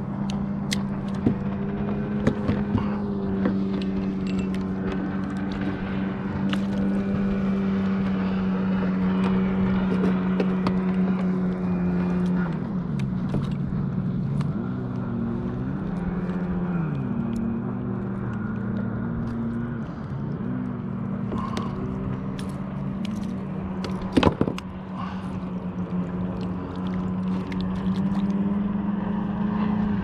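Motorboat engine running steadily on the water. About halfway it drops in pitch and picks back up a couple of times as the throttle changes. Scattered light clicks and one knock near the end come from fishing gear being handled.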